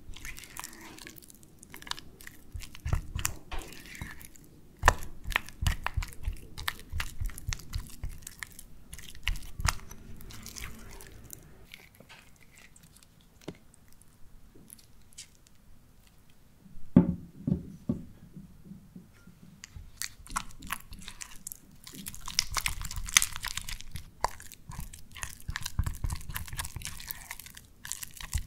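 Silicone spatula stirring and mashing soft cream cheese in a glass bowl: irregular squelching strokes with light scrapes and taps against the glass. It eases off around the middle, gives one sharp knock about two-thirds in, and works faster again near the end.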